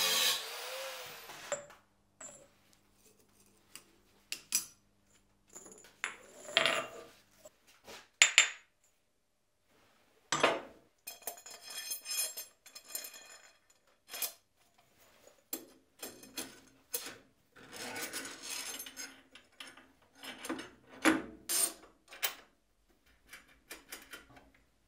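Steel parts and tools being handled by hand: a string of separate clinks, taps and scrapes of metal on metal, with a steady machine noise dying away about a second in.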